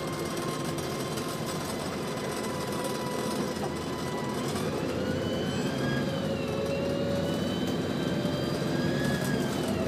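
Volvo B7TL double-decker bus heard from the lower saloon while under way: its diesel engine running with the whine of the Voith automatic gearbox, which rises and falls in pitch with the bus's speed several times.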